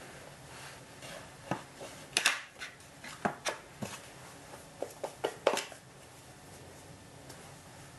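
Mochi being rolled and patted in powdered starch in a metal tray: a scatter of quick pats, brushes and taps on the tray, stopping about six seconds in.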